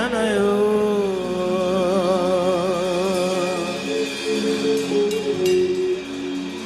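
Slow worship music: sustained chords under long, wavering held notes.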